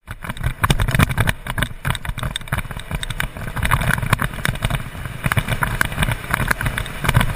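Rumbling wind buffeting with irregular knocks and rattles, from a camera carried quickly along a rough gravel dirt track.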